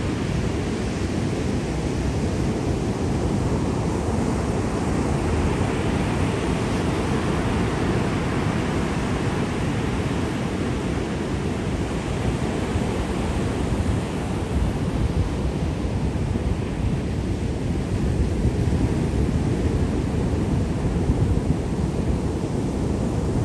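Sea surf washing steadily, in slow swells, with a rumble of wind on the microphone.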